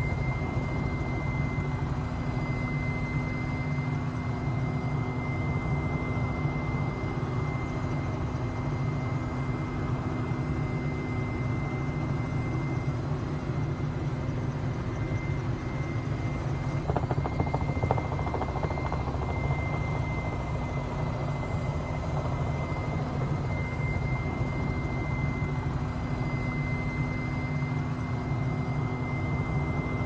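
Helicopter heard from inside the cabin, running steadily: a constant low rumble with a steady whine over it.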